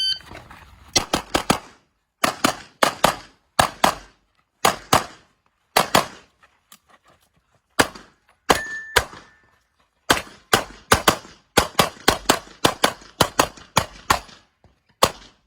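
A pistol being fired rapidly through a USPSA stage: a short beep at the start, then sharp shots in quick pairs and strings with brief pauses between target arrays, ending in a long fast flurry. A brief ringing note follows a pair of shots about halfway through.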